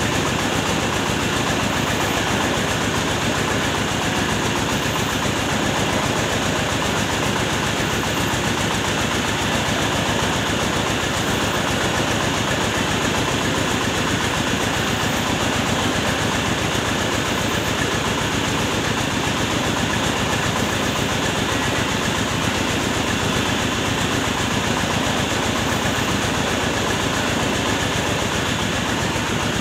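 Truck-mounted mobile rice mill running, its engine and milling machinery making a steady, unchanging mechanical noise.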